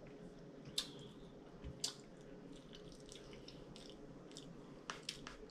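Close-miked eating sounds: chewing with soft wet mouth clicks, and a few sharp clicks of a metal fork against a plate, the loudest about a second in, two seconds in and near the end.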